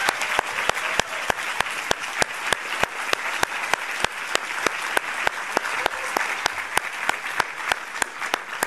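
Audience applause, a dense patter of many hands, with one pair of hands clapping close to the microphone at about four or five claps a second. The applause dies away near the end.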